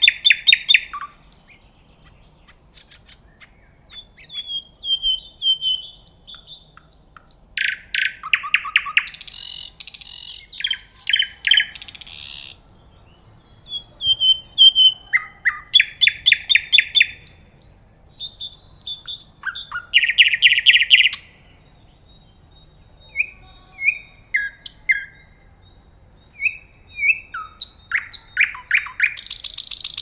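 Nightingale singing in separate phrases of rapid repeated notes, whistles and fast trills, each phrase a second or two long with short pauses between.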